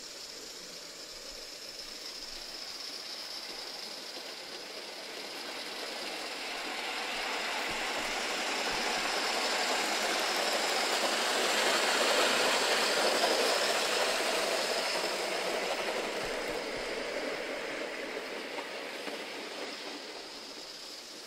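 Coal-fired Gauge 3 live-steam model of an A3 locomotive hauling a rake of coaches past on a garden railway: a steady hiss of steam and wheels on the track. It swells to its loudest a little past halfway through, then fades as the train moves away.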